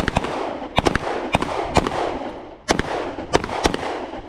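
Several handguns firing at once from a line of shooters, shots coming in quick, uneven succession and overlapping, each followed by an echoing tail, with a brief lull about two seconds in.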